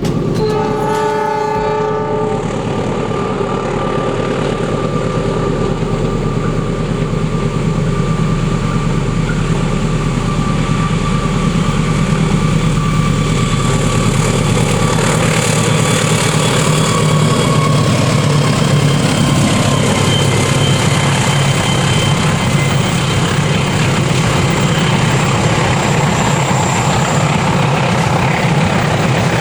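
KAI Taksaka passenger train passing: steady rumble of the diesel locomotive and the rolling noise of the coaches on the rails. A short horn-like tone sounds in the first two seconds.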